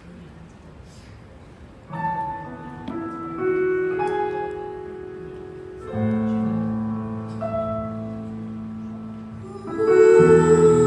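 Stage keyboard on a piano sound playing the slow intro of a pop ballad: held chords, each let ring, entering about two seconds in after a moment of room tone. A fuller, louder chord comes near the end.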